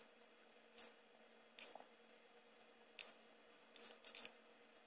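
Plastic spoon scraping and tapping in a stainless steel mess-tray compartment, scooping up soaked cereal mix: about six faint, short scrapes and clicks spread out over the moment.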